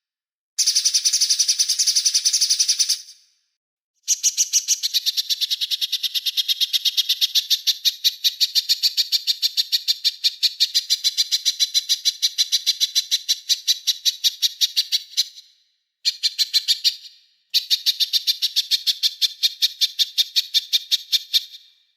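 A small songbird singing long runs of rapid, evenly repeated sharp high-pitched chips, in four stretches broken by brief pauses, the longest lasting over ten seconds.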